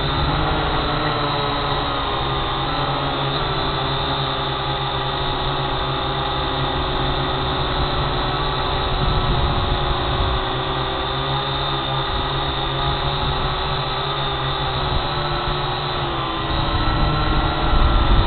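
Drone propellers buzzing in flight: a steady whine of several tones that drift a little in pitch and dip briefly near the end, over a low rumble that grows louder at the close.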